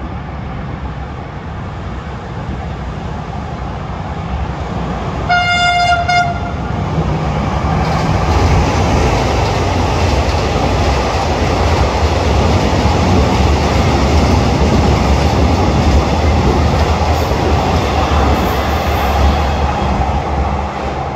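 A diesel-hauled State Railway of Thailand passenger train sounds its horn once, one steady tone about a second long, five seconds in. It then runs past, and the steady rumble of engine and wheels on rails grows louder and holds.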